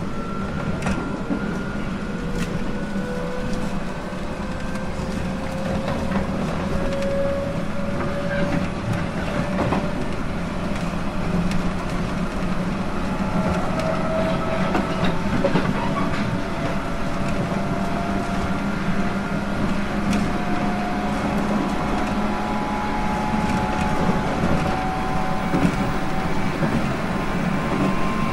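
JR East 719 series electric multiple unit running, heard from inside the car: a steady low rumble with a motor and gear whine that slowly climbs in pitch as the train gains speed, and light clicks of the wheels over rail joints.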